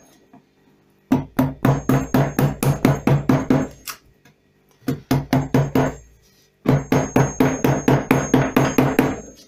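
Round-headed mallet tapping a carving chisel into linden wood: three runs of quick, even taps, about four or five a second, with short pauses between them.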